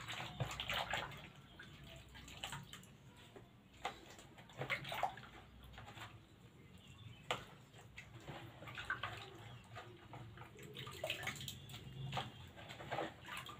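Hands swishing and sloshing raw potato chip slices in a plastic basin of starchy rinse water, with irregular splashes and drips as handfuls are lifted out.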